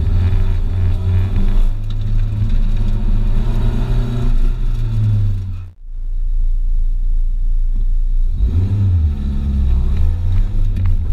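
Nissan 240SX's 2.4-litre four-cylinder engine pulling hard under load inside the cabin. The sound cuts off abruptly a little past halfway, and a lower rumble follows. Then, near the end, the engine revs up again, its pitch rising as the car accelerates.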